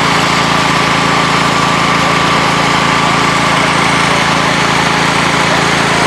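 An engine running steadily at a constant speed: an even drone with a steady high whine over it.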